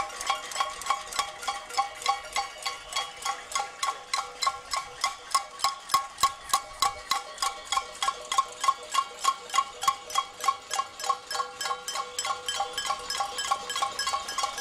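A ringing metal object struck over and over in a fast, steady beat, about five strikes a second. Each hit rings at the same clear pitch, like protest noise-making with a bell or pot.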